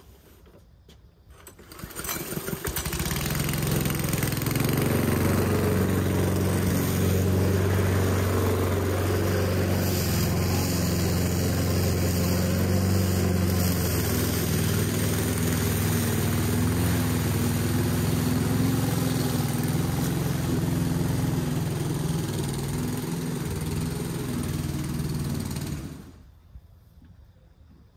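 Petrol engine of an Aldi Ferrex 20-inch self-propelled lawn mower running at a steady speed. It comes in about two seconds in and stops about two seconds before the end.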